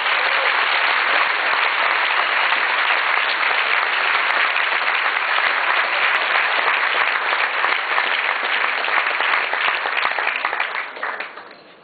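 A large audience applauding, a dense, steady clapping that fades out near the end.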